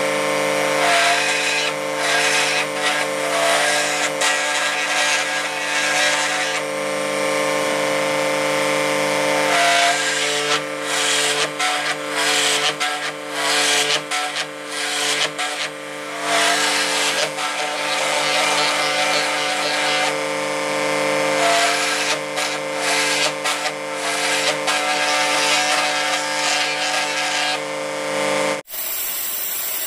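Drill press fitted with a straight router-type bit, its motor running steadily while the spinning cutter routs a groove along a hand-fed wooden strip, the cutting rasp swelling and dipping as the wood is pushed through. The sound cuts off suddenly near the end.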